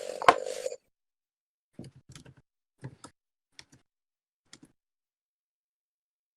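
Computer keyboard clicks over a voice-chat microphone: a short noise with one sharp click at the start, then a handful of scattered key clicks, some in pairs, with the line cutting to silence between them.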